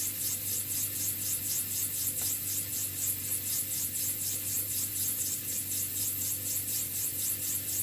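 A Petoskey stone rubbed back and forth by hand on wet 1200-grit sandpaper, in a fast, even rhythm of strokes. The stone is gliding smoothly on the paper, the sign that the previous grit's scratches have been sanded out.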